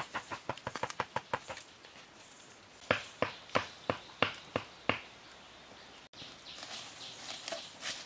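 Knife chopping on a wooden stump used as a chopping block: a fast run of light knocks that fades out in the first second and a half, then, after a pause, six sharp chops about a third of a second apart. Faint bird chirps in the outdoor background near the end.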